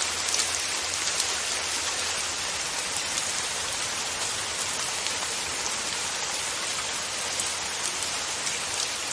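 Steady rain falling on a surface: an even hiss dotted with many small drop ticks, holding a constant level.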